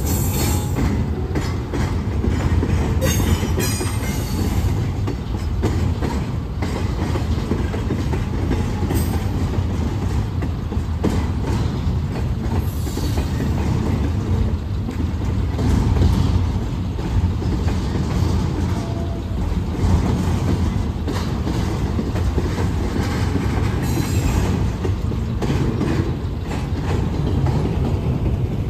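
Double-stack container cars of a freight train rolling past, a steady low rumble with the wheels clicking over the rail joints. A few brief high-pitched wheel squeals rise over it.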